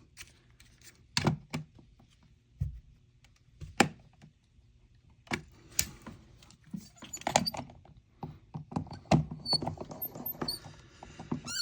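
Scattered light clicks and knocks at irregular intervals as an electrical outlet is handled and levelled in its wall box, with a few faint high squeaks near the end.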